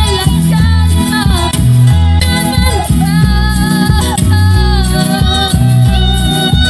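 Live Latin-style gospel music: a woman sings the lead over a band with a loud, moving bass line, keyboards and percussion.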